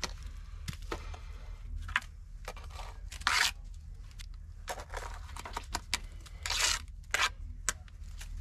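Steel mason's trowel scraping and spreading wet mortar onto the end of a concrete cinder block, a run of short rough scrapes with a few sharp clicks of trowel on block. The longest, loudest scrapes come about three seconds in and again past six seconds.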